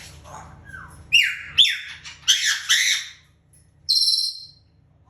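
African grey parrot squawking: four loud, harsh screeches in quick succession, then a higher, steadier whistle-like call about four seconds in.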